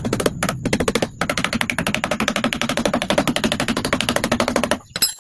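Rapid, even train of sharp taps, about ten a second, with short breaks about a second in and near the end.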